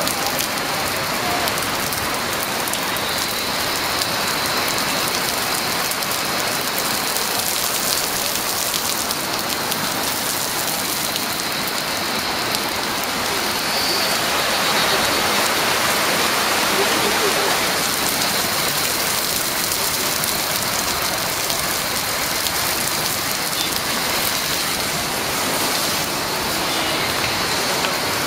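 Heavy monsoon rain falling steadily, an even, dense hiss of the downpour that swells slightly in the middle.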